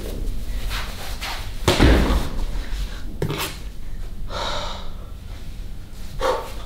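A few dull thumps and clothing rustle from a person dressing and moving about, the loudest thump a little under two seconds in, with a long breath out a little past the middle.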